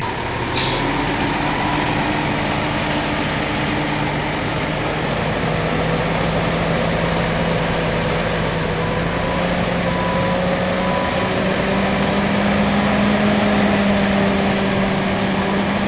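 Flatbed tow truck's diesel engine running steadily as the truck moves off, its pitch rising slowly over several seconds.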